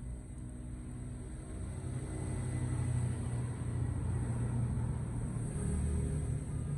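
Steady low rumble of an engine running nearby, growing a little louder about two seconds in.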